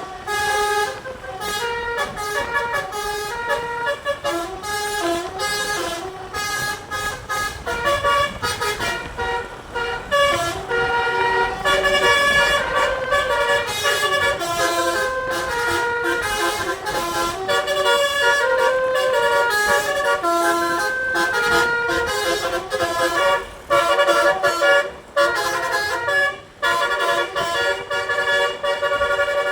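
Bus 'telolet' musical air horn, a DAV D3 multi-trumpet set, playing a long melody. Several horn notes sound together and shift pitch every fraction of a second, with a few short breaks near the end.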